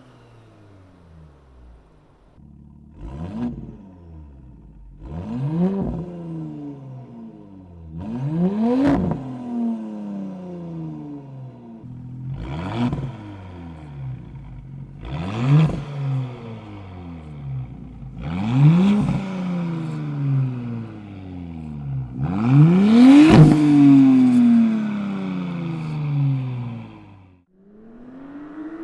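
Audi B9 S4's V6 exhaust: the engine idles and is blipped in seven free revs, each rising sharply and falling back to idle. The revs grow stronger, and the last and biggest one comes near the end.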